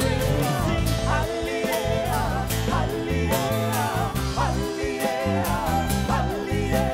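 Live band playing rock music: a man singing over strummed acoustic guitar, electric bass and a Mapex drum kit.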